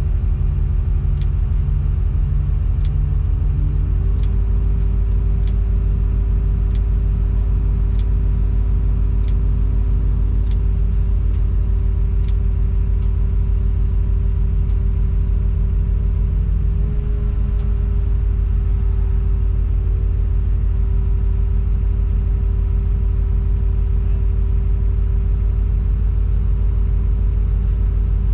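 Tadano crane's diesel engine running steadily under load, heard from inside the operator's cab, with a steady hydraulic whine over it during the girder lift. The engine note steps up about four seconds in and shifts again with a brief dip a little past halfway. Faint regular clicks about every second and a quarter sound through the first half.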